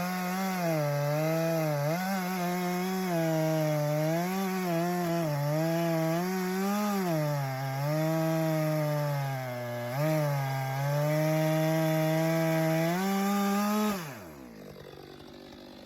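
Stihl MS 462 two-stroke chainsaw with a 25-inch bar cutting through a big log, its engine pitch dipping and recovering as the chain bogs under load. Near the end the engine winds down.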